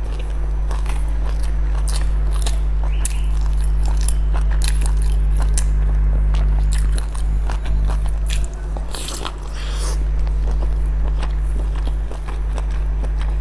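Close-miked eating of a soft steamed dumpling: biting and chewing with wet, irregular mouth clicks and smacks. A steady low hum runs underneath.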